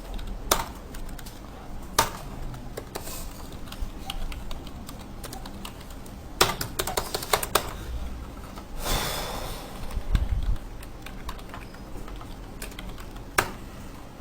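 Keys being typed on a computer keyboard: scattered single keystrokes with a quick run of taps about six seconds in. A brief breathy rush of noise about nine seconds in.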